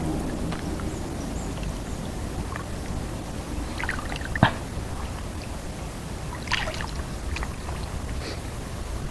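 Steady water noise around a wading angler, with a few short sharp splashes or knocks. The loudest of these comes about four and a half seconds in.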